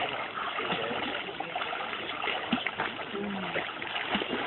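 Water splashing and churning as a beginner swimmer kicks and flails in a river, held up by another person.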